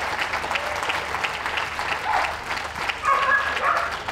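Crowd applauding steadily, with a dog barking briefly over it about two seconds in.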